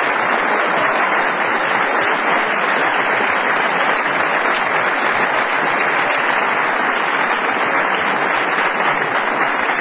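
Crowd applauding steadily, a dense patter of many hands.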